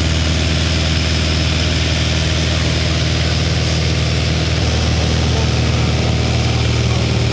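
Light plane's piston engine and propeller droning steadily at a constant pitch, heard from inside the cabin in cruise.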